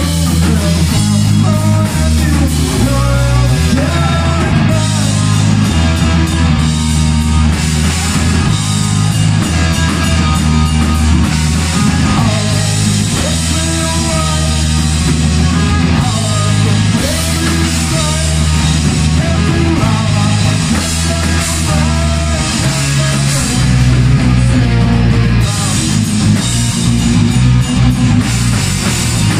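Loud heavy rock music: guitars and a drum kit over a heavy low end that shifts from chord to chord, with a wavering lead melody above.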